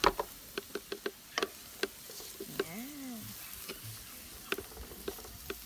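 A wooden spoon stirring minced garlic, ginger and chili in a non-stick wok, giving a string of sharp clicks and scrapes against the pan over a faint sizzle of oil. The garlic is being fried to golden brown.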